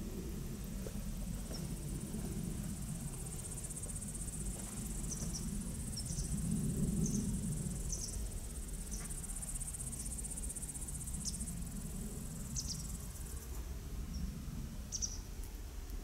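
Honeybees buzzing around their hives, the low hum swelling and fading as bees fly close past. Over it a steady high insect trill from the grass, with a few short high chirps.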